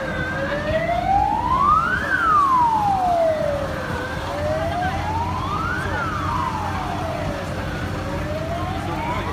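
Emergency vehicle siren sounding a slow wail, one tone rising and falling over and over, a full cycle about every four seconds, over a low steady rumble.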